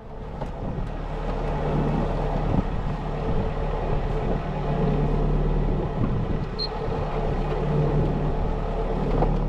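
A sailboat's inboard engine running steadily under way, a low hum with a rushing noise over it.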